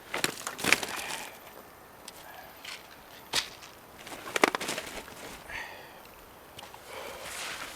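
Irregular footsteps crunching on the forest floor, several sharp crunches a second or so apart. There is a short high chirp about five and a half seconds in.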